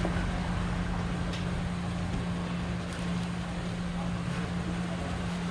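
A steady low machine hum with one constant tone, and a few faint light ticks over it.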